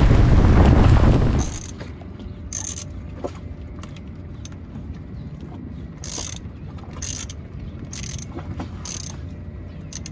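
Strong storm wind blasting across the microphone for about the first second and a half, then cut off. After that, a socket ratchet wrench is worked on the bolts of a small outboard motor, giving several short bursts of ratchet clicking about a second apart.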